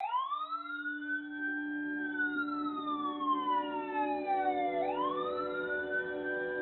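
Wailing emergency siren: its pitch rises quickly, holds, then slides slowly down before rising again about five seconds in, over a few steady low tones.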